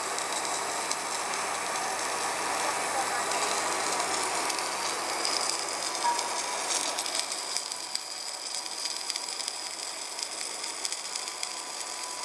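Submerged arc welding: the arc burning under its flux layer gives a steady crackling sizzle, which softens a little about seven seconds in.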